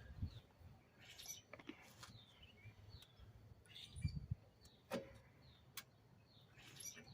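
Faint, scattered clicks and taps of drum-brake parts being handled, with birds chirping in the background.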